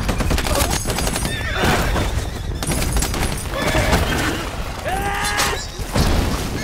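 War-film battle sound: dense gunfire with explosions, and several loud pitched cries rising over the shooting.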